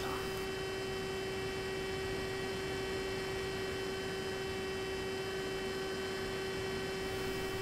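Steady electrical hum with several fixed higher whining tones over a low hiss, unchanging throughout.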